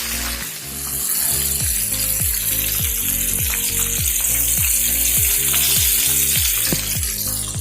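Breaded chicken drumsticks deep-frying in hot oil, a steady bright sizzle that comes up about a second in and eases off near the end, over background music.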